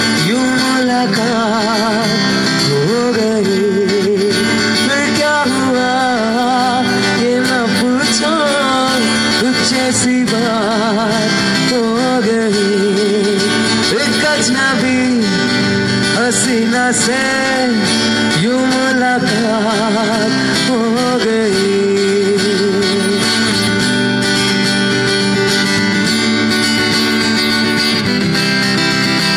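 Live acoustic performance: a man singing into a microphone, holding notes with a wavering vibrato, accompanied by an acoustic guitar.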